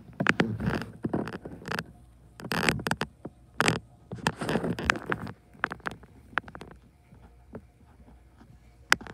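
Handling noise from a phone being moved over a paper drawing: a run of clicks, taps and short rustles for about the first five seconds, then quieter with scattered clicks and one sharp click near the end.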